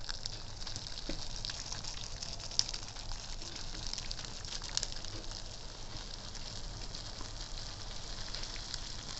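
Just-boiled water poured from a kettle in a thin steady stream onto a block of dry instant ramen noodles in a bowl: a steady hiss with many small crackles.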